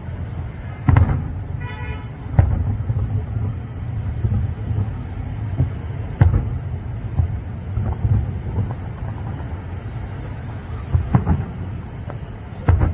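Distant aerial firework shells bursting: several booms a few seconds apart over a steady low city rumble. A brief horn-like tone sounds about two seconds in.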